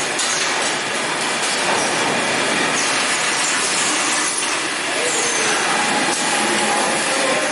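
An automatic rice bagging and baling line running: a steady, dense machine noise with hiss and a few brief high squeals.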